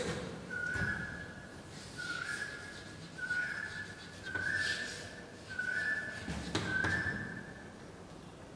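Chalk squeaking on a blackboard as a word is written: about six short, high squeals, roughly one a second, each stepping slightly up in pitch, with faint scratching between them.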